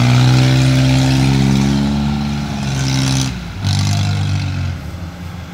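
Tracked rice combine harvester's diesel engine revving up and running hard while working in deep mud. Its note drops out briefly a little over three seconds in, picks up again, then settles lower near the end.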